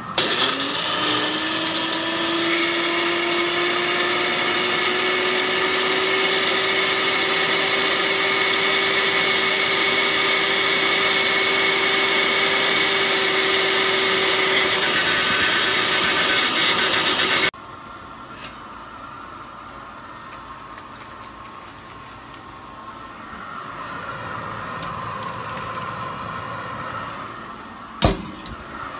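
Single-serve bullet-style blender running at full speed, pureeing orange vegetable pieces, its motor pitch rising as it spins up and then cutting off suddenly after about seventeen seconds. A single sharp knock comes near the end.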